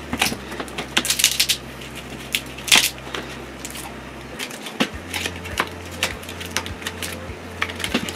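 Irregular clicks and scraping from a thin pry tool working a glued battery out of a Redmi 9A smartphone, with the loudest clusters about a second in and near three seconds.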